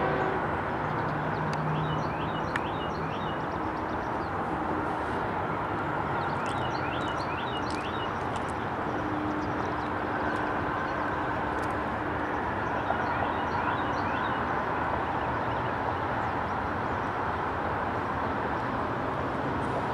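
Distant CSX freight train approaching, led by an ES44AH and an SD40-2 diesel locomotive: a steady rumble of engines and rolling train. Short bird chirps come over it in several clusters.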